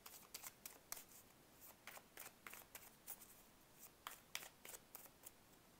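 Tarot cards being shuffled by hand: faint, irregular flicks and clicks of card stock sliding against card.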